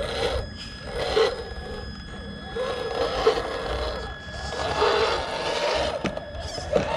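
Electric drive of a 1/10-scale HG P407 Toyota Hilux RC crawler whining, its pitch wavering up and down with the throttle as the truck climbs over loose dirt clods, with a sharp click about six seconds in.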